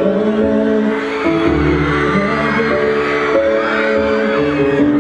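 Live band music with held chords, and a man singing into a handheld microphone.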